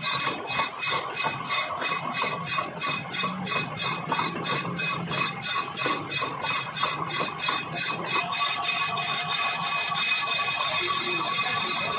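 Lathe cutting tool skimming the face of a spinning brake disc, making a steady scraping cut with a thin high ring. It pulses about three to four times a second, then settles into a steadier sound about eight seconds in.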